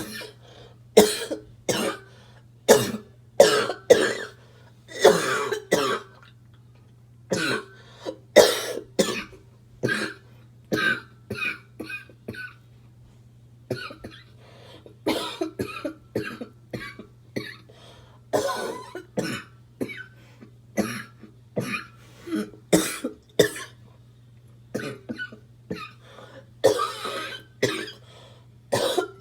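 A smoker's harsh, barking cough in repeated fits of short, loud coughs, with brief pauses between the fits.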